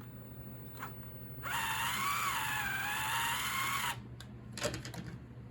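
Small electric motor of a 1/32 slot car whining for about two and a half seconds as it spins the rear tires against a tire truer's cleaning pad, its pitch dipping slightly and recovering under the load. A few light clicks follow.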